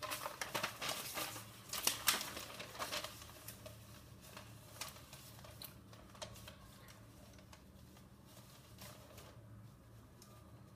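Light clicks and rattles of small hard metal parts being handled, as of a battery-and-neodymium-magnet assembly against a bare copper-wire coil. The clicks come thick for the first three seconds or so, then grow sparse and fainter.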